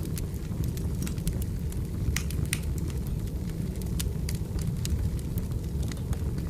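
Firewood burning: a steady low rumble of flame with frequent, irregular sharp crackles and pops from the wood.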